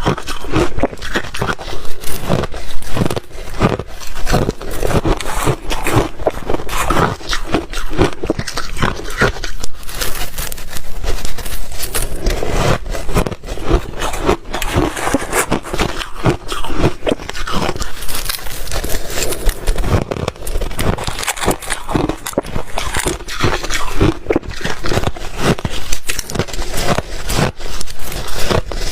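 Ice being bitten and chewed close to the microphone: a dense, continuous run of crisp crunching and crackling.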